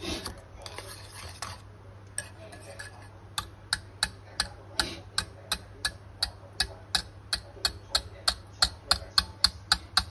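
Wire whisk beating thick, chilled homemade chamois cream in a stainless steel pan. A soft stirring swish at first, then from about three seconds in the whisk's wires tick against the metal side of the pan about three times a second, growing louder toward the end.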